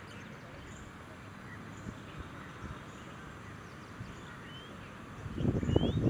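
Faint, scattered chirps of small birds over a steady outdoor background hiss. About five seconds in, a loud, gusty low rumble of wind buffeting the microphone begins.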